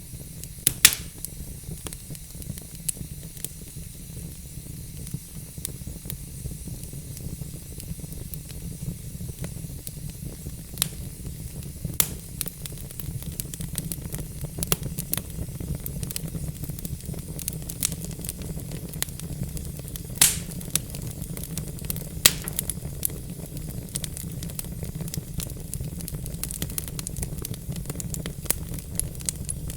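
Wood fire burning in a fireplace: a steady low rumble and hiss with frequent sharp crackles and pops, a few louder pops about a second in and again twice near two-thirds of the way through.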